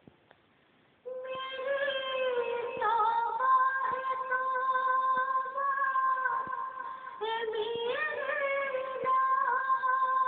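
A woman reciting a naat, an unaccompanied Urdu devotional poem, in a melodic singing voice with long held notes. It begins about a second in after a brief pause.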